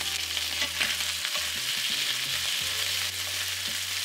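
Strips of skirt steak searing in hot vegetable oil in a nonstick frying pan, sizzling steadily.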